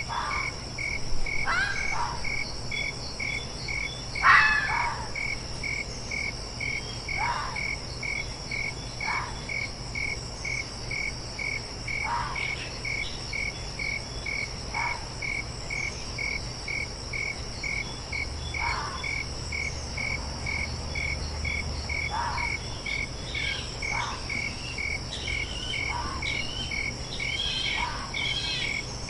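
Fox giving a series of short, separate barks every couple of seconds, the loudest two in the first five seconds, over crickets chirping in an even rhythm and a steady high insect drone.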